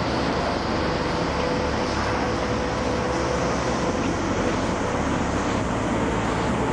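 Caracas Metro train approaching slowly along the platform track: a steady, loud running noise with a faint steady tone, building slightly near the end.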